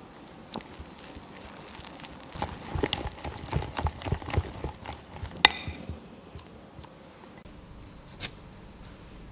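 A wire whisk stirring thick flour-and-milk batter in a glass measuring jug: a dense run of clicks, taps and wet scraping against the glass from about two seconds in until about six seconds in, with one sharper tap in the middle. A single click follows near the end.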